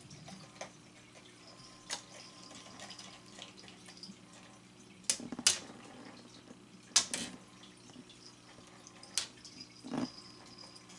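A cat at a stainless steel bowl, making sharp, scattered clicks and clinks against the metal with wet, water-like sounds, the loudest in two close pairs about halfway through. A steady low hum runs underneath.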